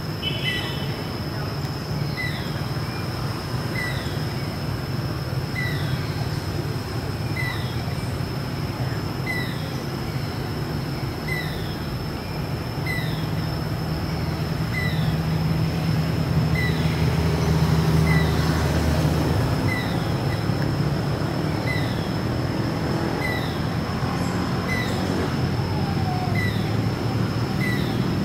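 Outdoor ambience: a steady low rumble that swells in the middle, a steady high thin whine, and a short chirp repeating evenly about once a second throughout.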